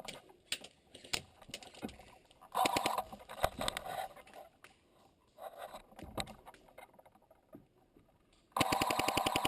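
Airsoft electric rifle firing full-auto bursts: a short burst about two and a half seconds in, a weaker one around five and a half seconds, then a long rapid burst from about eight and a half seconds, roughly twenty shots a second, with scattered single clicks between.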